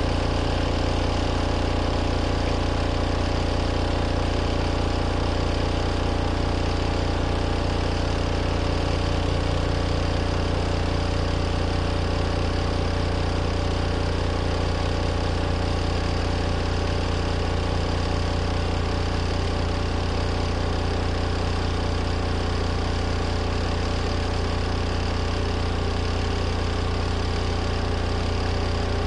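Compact RV washing machine in its spin cycle: a steady motor hum with a strong low drone.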